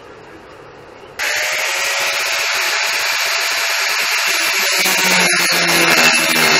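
Angle grinder switching on about a second in and grinding the steel tubing of a go-kart frame, a loud steady grinding with a motor whine that deepens about five seconds in as the disc bears on the metal.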